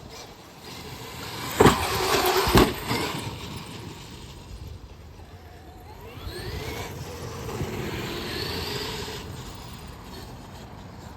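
Traxxas XRT radio-controlled monster truck driving: a loud rush of running with two hard knocks about a second apart, then its brushless electric motor whining and rising in pitch twice as it accelerates.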